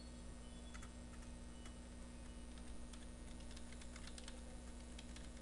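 Faint computer keyboard typing: irregular, scattered keystrokes over a steady low electrical hum.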